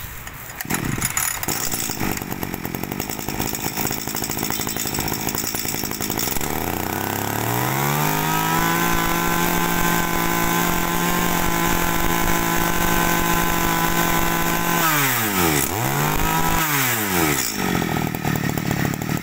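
Kawasaki 24 cc two-stroke brush cutter engine running on test. It runs unevenly at first, revs up about six seconds in and holds a high, steady speed, then near the end it drops off and picks up again twice as the throttle is eased and squeezed.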